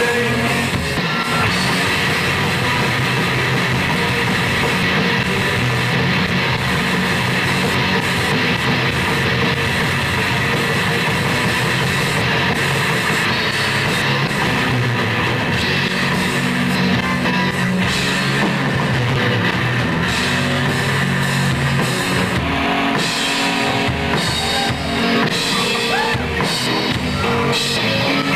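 Rock band playing live: guitars and a drum kit at a loud, steady level.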